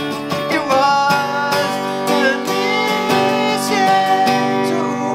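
Outro song music with strummed acoustic guitar.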